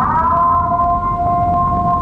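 Recorded doomsday civil-defence siren played loud through the Volkswagen Saveiro's car sound system: a two-tone wail that swoops up at the start, then holds steady, over a constant low rumble.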